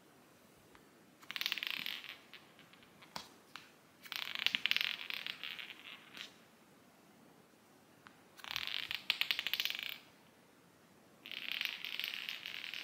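Cat's claws scratching and raking at cardboard inside a box, in four bursts of rapid scratchy clicking a second or two long, with short pauses between.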